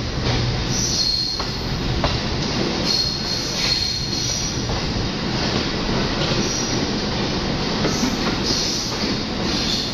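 Passenger train coaches running through a station, heard from an open coach door: a steady rumble and rush of wheels on rail, with brief high wheel squeals now and then.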